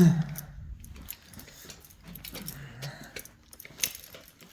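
A low thump, then scattered light clicks and rustles of handling and movement, like small metal items jingling.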